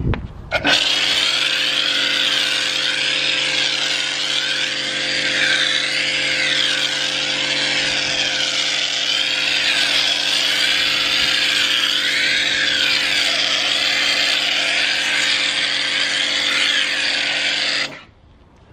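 Kärcher K4 Compact electric pressure washer running steadily, with the hiss of a snow foam lance spraying foam onto a car. It starts about half a second in and cuts off suddenly near the end when the trigger is released.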